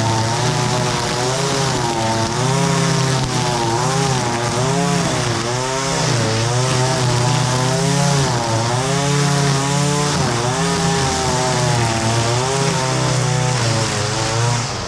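Echo SRM-225 gas string trimmer's small two-stroke engine running hard while cutting thick grass. Its pitch rises and falls again and again as the throttle is worked.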